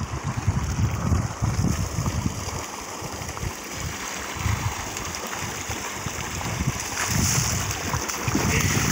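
Water gushing steadily from a tube-well pump's outlet pipe into an irrigation channel, with splashing near the end as someone wades into the water.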